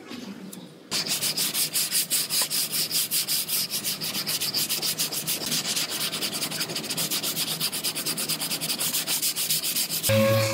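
Hand sanding of cured body filler on a car's quarter panel: sandpaper on a pad scraping in rapid back-and-forth strokes, about five a second, starting about a second in. Right at the end it gives way abruptly to the steady hum of a power sander.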